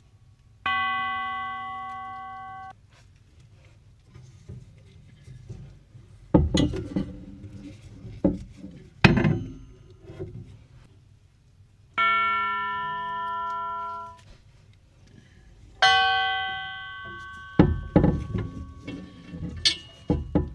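Herschede grandfather clock chime tubes struck one at a time, ringing three times with long bright tones. The first two rings are stopped short after about two seconds. Between the rings come sharp knocks and clunks, with a burst of several knocks near the end.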